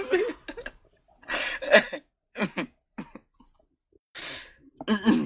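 A man's short, breathy vocal outbursts, several in a few seconds with silent gaps between them, amid reading aloud.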